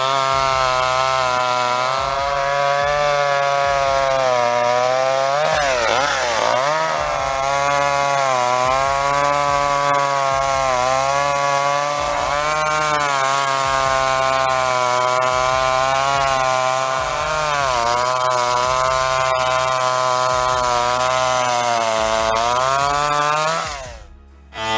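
Chainsaw cutting through logs at full throttle. The engine note sags in pitch several times as the chain bites into the wood and recovers between cuts. It stops just before the end.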